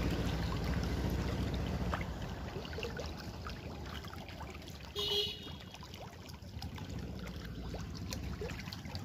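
Water trickling and splashing over a low engine hum that fades over the first few seconds, with small scattered clicks and a brief high pitched tone about five seconds in.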